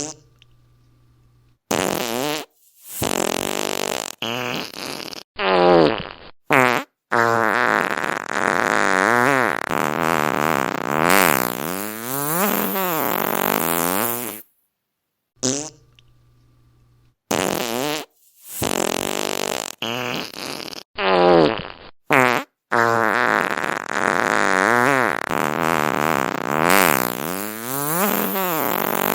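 Fart sounds played one after another: several short farts, then a long, drawn-out one that wobbles up and down in pitch. After a short gap about halfway through, the same sequence plays a second time.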